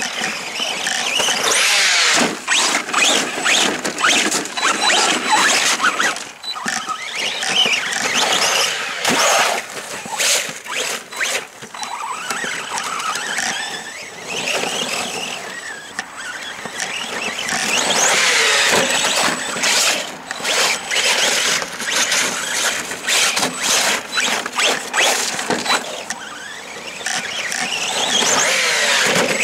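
Arrma Senton 3S BLX RC short course truck driving. Its brushless motor and gears whine up and down repeatedly as the throttle is worked, with frequent clicks and knocks as it bounces over rough ground.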